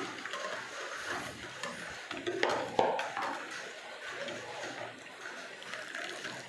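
Wire whisk clinking and scraping around a mixing bowl as egg yolks are whisked while the hot butter, sugar and citrus-juice mixture is added a little at a time to temper them, with a few sharper clinks of a small glass jug.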